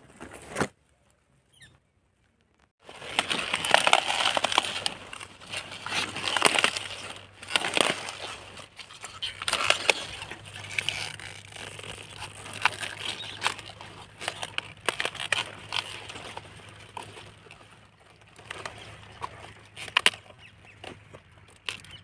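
Crisp crackling and rustling as a cauliflower head and its leaves are cut with a knife and broken apart by hand, starting about three seconds in over a faint steady low hum.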